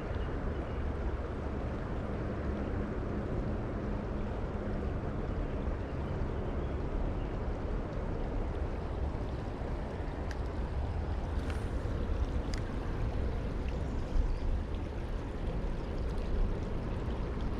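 Fast-running creek water rushing steadily, with a few faint clicks in the second half.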